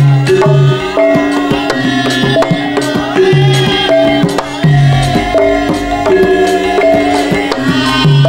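Javanese gamelan music accompanying a Lengger dance: struck, ringing pitched notes over a busy hand-drum rhythm.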